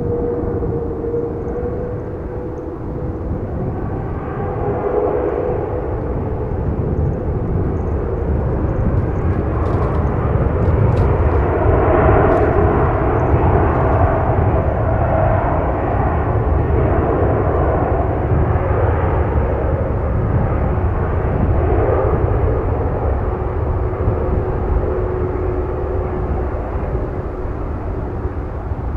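Boeing 787-9 jet engines at takeoff thrust during the takeoff roll: a loud, steady roar with a whining tone on top, swelling to its loudest about halfway through and easing slightly near the end as the airliner passes.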